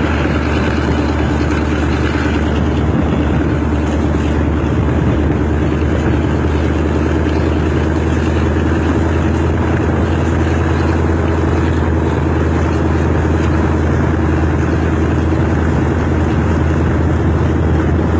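State Railway of Thailand diesel locomotive 4227, still with its original engine, running steadily under load while hauling a passenger train up the Pha Sadet–Klang Dong grade. Heard through an open carriage window, its steady low drone is mixed with wheel-on-rail noise and wind.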